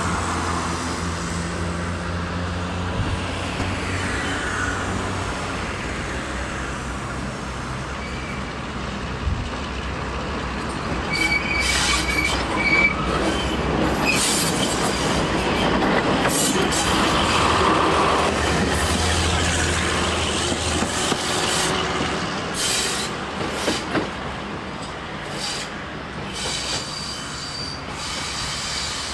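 Class 52 'Western' diesel-hydraulic locomotive running, its twin Maybach engines giving a low steady drone at first, then a moving train's wheels rumbling on the rails, with a brief wheel squeal and scattered clicks over rail joints in the second half.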